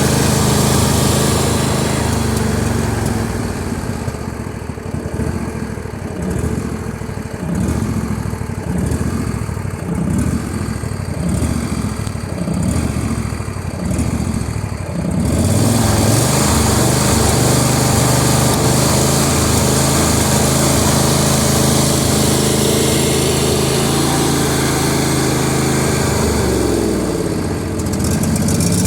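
John Deere L118 lawn tractor engine running at low idle, its sound swelling and falling about once a second, then throttled up about halfway through to a faster, steady run, with a brief dip in speed near the end.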